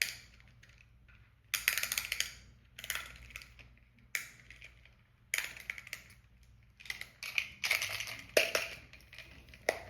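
Toy packaging being handled and opened by hand: irregular bursts of rustling and crackling, each lasting up to a second or so, with short pauses between.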